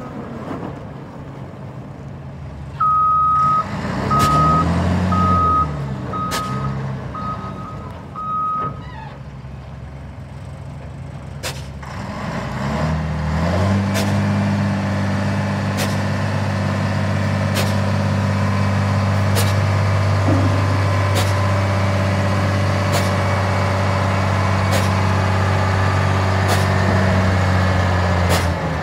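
Volvo A35 articulated dump truck with its diesel engine running. Early on the reversing alarm beeps about six times, about once a second, while the engine revs up and down. From about halfway in the engine holds steady at high revs as the hydraulics tip the dump body up.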